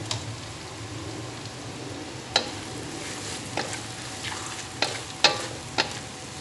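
A pounded chili, shallot, garlic and dried-shrimp paste sizzling in hot oil in a wok while a wooden spatula stirs it. The spatula knocks and scrapes against the pan about five times, loudest about two and a half and five seconds in.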